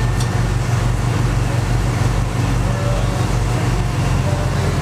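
Dive boat's inboard engines running steadily underway, a low drone with a slow throb about twice a second, over the rush of water and wind.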